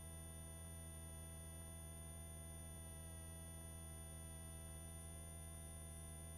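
Faint, steady electrical hum of a helicopter intercom audio feed: a low drone with many fixed higher tones and no change. It is the idle line noise while the voice-activated headset mics are closed.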